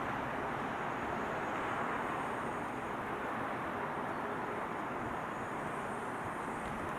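Steady, even rushing background noise outdoors, with no distinct events.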